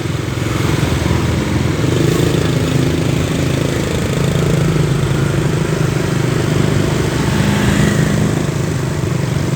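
A vehicle engine running steadily at idle, with a low, even hum.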